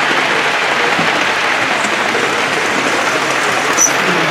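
O-scale model freight train of tank wagons rolling past: a steady clatter of metal wheels on the track, with one short tick near the end.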